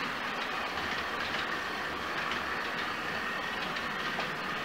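Model train running on the layout's track: a steady rolling noise of wheels on rails.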